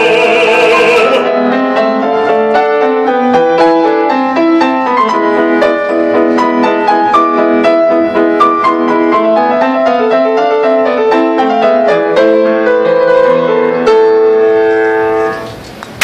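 A male opera singer's held final note, with a wide vibrato, ends about a second in. A grand piano then plays the closing passage alone: a run of notes and chords ending on a held chord that dies away near the end.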